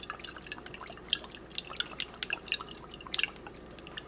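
Olive oil drizzled from a spouted bottle into a nonstick frying pan: irregular small ticks and drips, with sharper clicks about two and about three seconds in.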